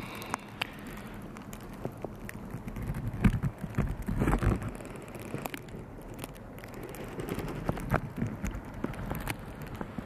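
Rustling with scattered light ticks and knocks from a handheld camera being moved about. A low wind-like rumble swells from about three to five seconds in.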